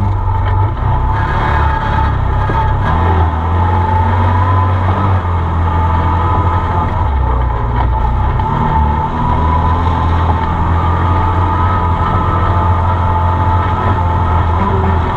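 Arctic Cat Wildcat side-by-side driving along a dirt trail, its engine running steadily with the note shifting a little now and then, and a steady high whine over it, heard from inside the open cab.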